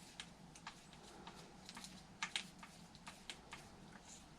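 Faint, irregular small clicks and taps of hands fitting the throttle linkage back onto an RC nitro engine, with two sharper clicks a little over two seconds in.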